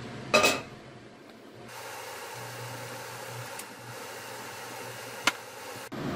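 A short metallic clank about half a second in, as kitchenware knocks against a stainless steel sink while broth is strained. A single sharp click comes near the end, over a steady low hum.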